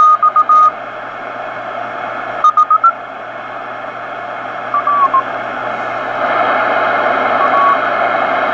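Ten Tec Century 21 transceiver's receiver playing a weak 40-meter band: a steady hiss with short snatches of Morse code tones that come and go and shift in pitch as the dial is tuned. No power-supply hum, a sign that the new filter capacitors are doing their job.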